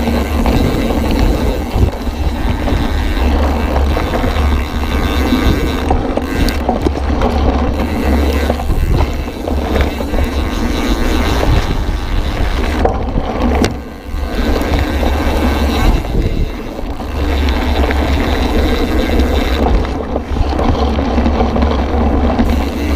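Mountain bike riding fast down a gravel forest trail: a steady rush of wind on the bike-mounted camera's microphone, with the tyres rumbling over the gravel, easing briefly about fourteen seconds in.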